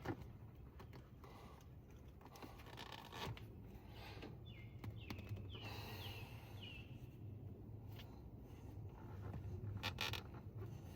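Faint scraping, rustling and clicking of hands reconnecting hoses in an engine bay, with a sharper click near the end. A few short falling chirps, like a bird's, come through about halfway through.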